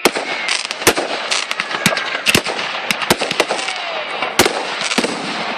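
Fireworks display going off: sharp bangs about twice a second over a continuous crackle of small pops.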